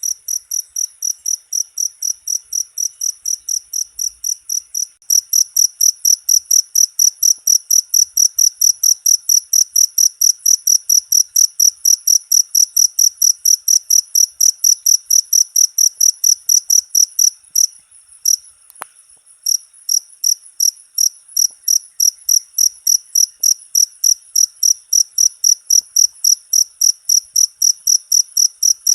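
Cricket chirping: a steady, rapid train of high-pitched chirps, about three to four a second, getting louder about five seconds in. About two-thirds of the way through the chirps falter briefly around a single sharp click, then carry on.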